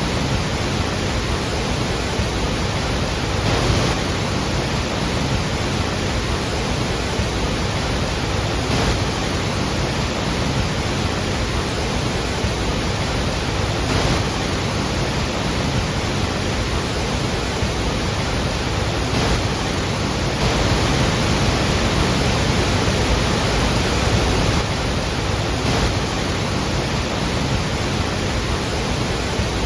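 Iguazú Falls: a large waterfall giving a steady, even rush of falling water with no break, swelling a little about two-thirds of the way through.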